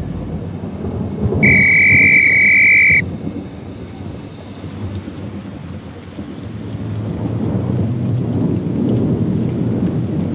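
Heavy rain pouring with a low rumble of thunder. About a second in, one loud, steady, high-pitched whistle blast cuts through for about a second and a half, then stops suddenly.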